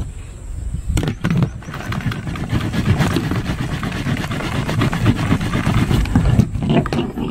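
Coca-Cola erupting with Mentos inside a lidded plastic container: a knock about a second in, then a rushing fizz with a low rumble for several seconds as the foam surges under the lid.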